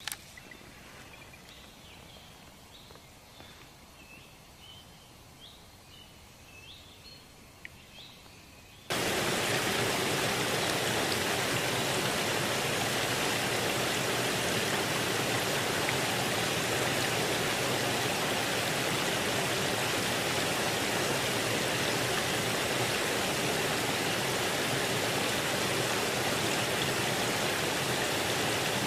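Faint small-bird chirps, short and high, over a quiet background for the first nine seconds or so. Then an abrupt switch to a loud, steady rushing of water that runs on unchanged.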